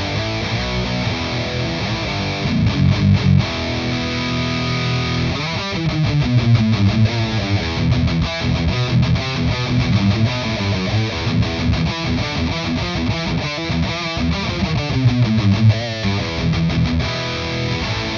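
Heavily distorted electric guitar playing a rhythm riff through an amp-sim plugin modelled on a Mesa Boogie Dual Rectifier, with heavy bass and choppy, stop-start chugs.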